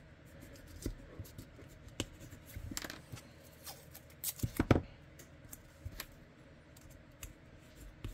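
Hands handling and marking holster-making materials at a workbench: scattered light clicks and rustles, with a short cluster of louder knocks about halfway through.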